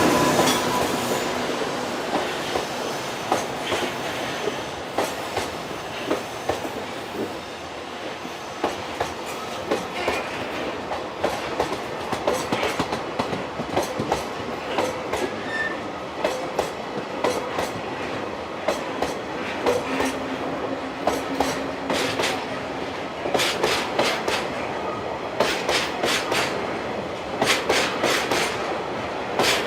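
Freight train wagons rolling past on a single-track line: a steady rolling rumble with the clickety-clack of wheels crossing rail joints, the clicks coming in quick groups as each bogie goes over.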